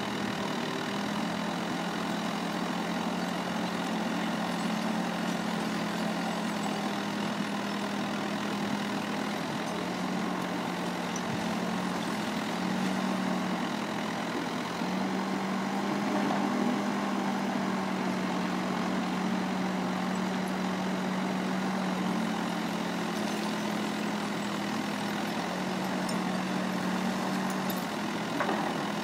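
L&T Case backhoe loader's diesel engine running steadily while the backhoe arm digs, its note dipping and rising slightly now and then.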